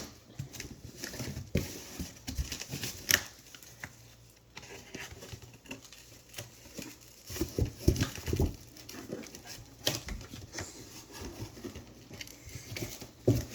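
Paper and cardboard being handled and worked on a tabletop: irregular rustling and crinkling with scattered light taps and clicks.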